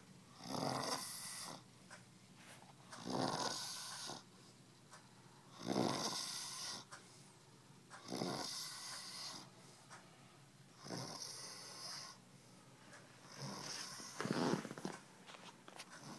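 A person passed out drunk on vodka, snoring in a steady rhythm: about six snores, each about a second long, coming roughly every two and a half seconds with quiet breaths between.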